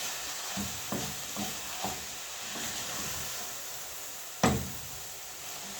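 Minced meat and cabbage frying in a pan with a steady sizzle while being stirred, with a few light scrapes and taps of the stirring utensil and one louder knock against the pan past the middle.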